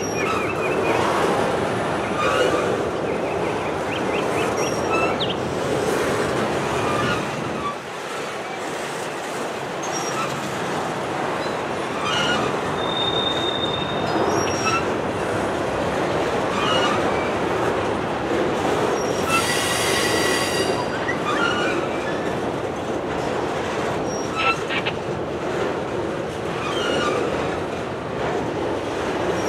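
Intermodal freight train rolling past, its flatcars loaded with highway trailers: a steady rumble of steel wheels on rail. Short, high wheel squeals come every few seconds, with a longer, shriller squeal about twenty seconds in.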